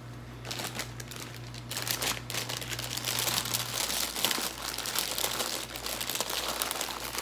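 Plastic snack-chip bag crinkling and crackling as it is handled and folded, in a dense, uneven run that grows louder about two seconds in.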